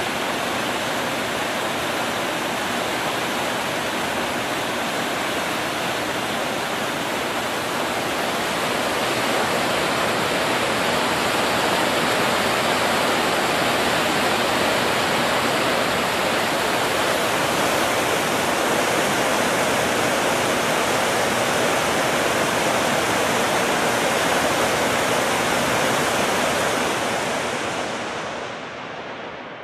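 Steady rush of a mountain river's whitewater, a dense even noise that fades out near the end.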